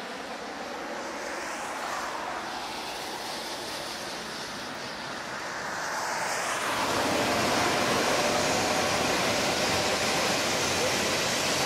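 Jet airliner engines at takeoff power, a broad rushing roar with a slow sweeping whoosh as the aircraft climbs away from a runway throwing up rain spray. About seven seconds in, this gives way to a louder, steadier hiss.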